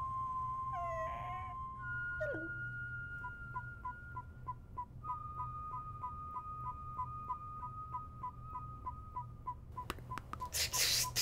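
Ghost trap sound effect: a steady electronic tone, then rapid electronic beeping, about three beeps a second, over a held tone, the trap signalling that the ghost is held inside. Two short falling squeals come in the first few seconds, and a few clicks and a burst of hiss come near the end.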